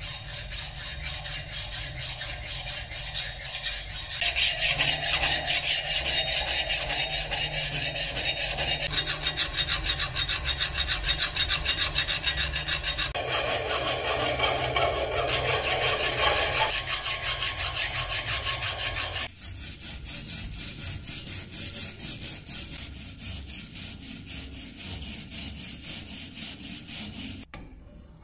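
Hand file rasping along a steel knife blade in rapid, repeated strokes. About 19 seconds in the sound drops suddenly to a quieter, duller rubbing.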